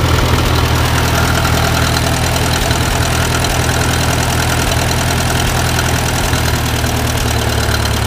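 International Harvester 350 Utility tractor's 175-cubic-inch gasoline engine idling steadily, its low note shifting slightly near the end.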